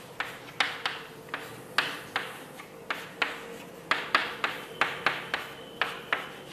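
A run of light, sharp taps, about three a second and slightly uneven, over a faint steady hum.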